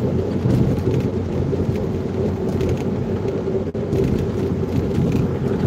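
Steady road and engine noise heard inside the cab of a vehicle driving at highway speed.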